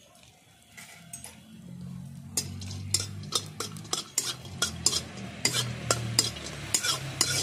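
A flat metal spatula scraping and clicking against a metal kadai, stirring bori (sun-dried lentil dumplings) frying in a little oil, over a low hum. The scraping starts about two seconds in, after near quiet, and goes on as quick irregular clinks.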